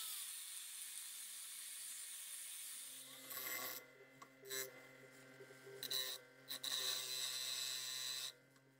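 An angle grinder's cut-off wheel slicing through a steel bolt clamped in a vise, a steady high hiss. About three seconds in it gives way to a bench grinder running with a steady hum, the bolt's end pressed against the wheel in several short grinding passes to shape a 3/8-inch drive end.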